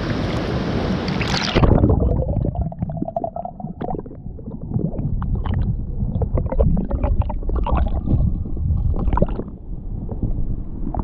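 Rushing stream water that turns suddenly muffled about a second and a half in. It gives way to gurgling and bubbling with scattered small clicks.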